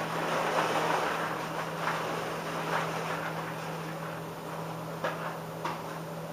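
Powdered-sugar-coated Chex cereal pouring and rustling out of a paper bag into a plastic bucket, the bag crinkling as it is shaken. Two light knocks come about five seconds in.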